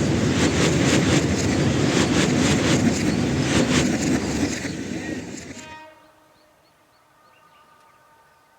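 Train passing close at speed, its wheels clattering steadily over the rail joints. The noise drops away sharply about six seconds in, leaving only faint, steady horn-like tones.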